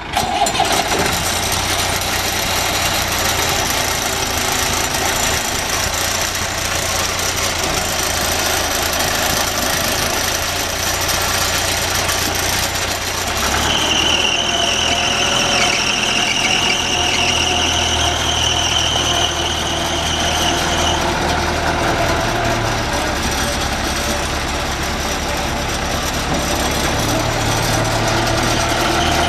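John Deere 416-series backhoe loader's diesel engine running steadily. From about 13 to 21 seconds in, the engine note shifts and a high whine sounds over it.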